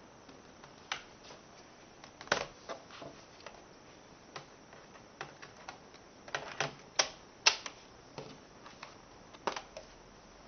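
Scattered plastic clicks and knocks as a laptop battery is fitted back into its bay on the underside of a Gateway NV50A10U and latched, with a cluster of sharper snaps a little past the middle.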